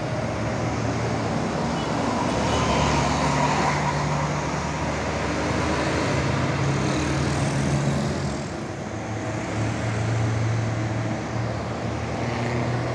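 Road traffic with large tour coaches' diesel engines running as they pull past, their low hum holding and shifting in pitch, amid cars and motorcycles.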